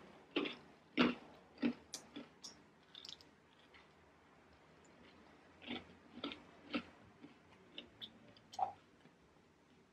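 A person chewing crisp Caesar salad lettuce with irregular crunches, in two bouts with a pause of about two seconds between them.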